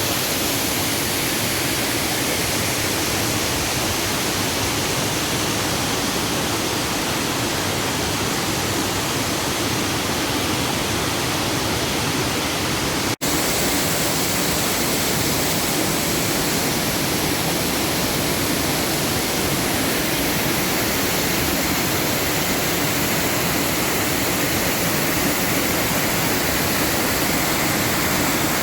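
Running water rushing steadily in a dense, even hiss. It cuts out for an instant about halfway through, then carries on.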